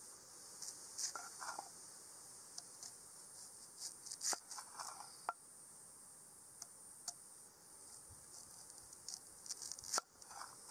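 Steady high-pitched chorus of insects, likely crickets, with scattered sharp clicks and a few short scrapes over it.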